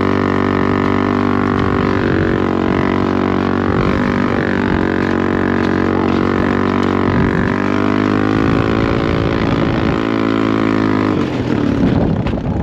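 Small engine running at steady high revs, a loud even drone with unchanging pitch. About eleven seconds in the drone breaks off into a rougher, noisier sound.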